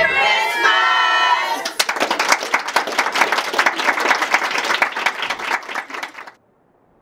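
A group finishes singing on a held last note, then people clap and cheer for about four seconds. The clapping cuts off suddenly near the end.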